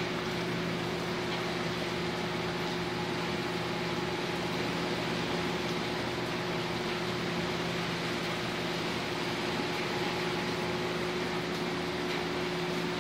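Steady rushing of strong sustained wind ahead of a hurricane, with a constant low mechanical hum underneath.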